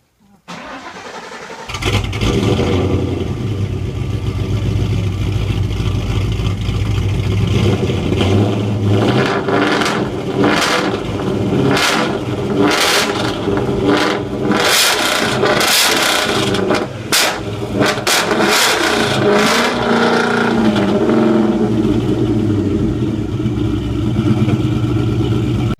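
Car engine of a 2003 Ford Mustang cranking and catching, then running with a steady rumble. It is blipped repeatedly through the middle stretch, with the pitch rising and falling.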